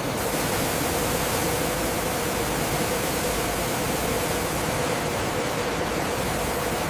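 Steady rushing noise with a faint hum underneath, the even background of food-processing machinery.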